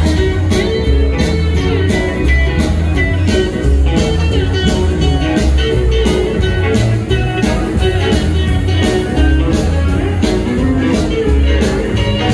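Live rockabilly band playing an instrumental passage: lap steel guitar and electric guitar over a walking bass line and a steady drum beat.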